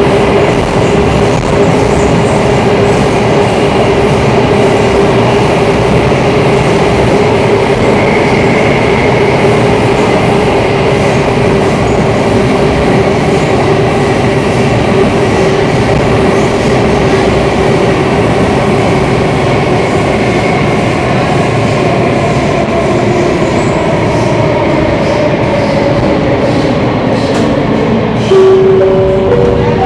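Running noise of an MRT train heard from inside the carriage: a loud, steady rumble of wheels on rail with a steady whine. In the last few seconds the whine slides lower as the train slows, and a few short tones sound near the end.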